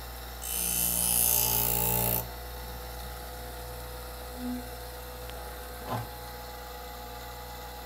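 Twice As Sharp scissor sharpener's motor running with a steady hum. About half a second in, a scissor blade is drawn against the spinning wheel, a hissing grind lasting under two seconds. A light click comes about six seconds in.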